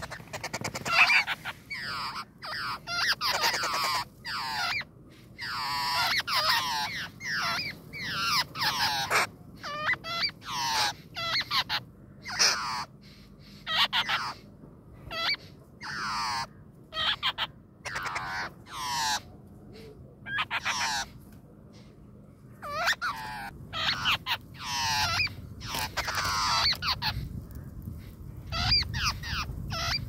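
Nestling songbirds in the nest giving repeated short, rough begging calls in quick bursts, with a short pause about twenty seconds in.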